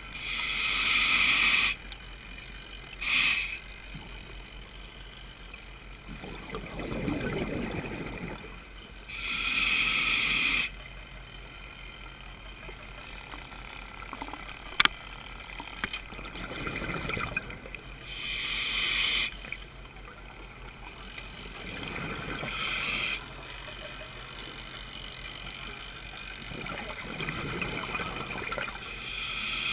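A scuba diver breathing through a regulator, heard through a GoPro's underwater housing. A soft inhale hiss is followed by a loud burst of exhaled bubbles, in a slow cycle of about one breath every nine seconds. There is one sharp click near the middle.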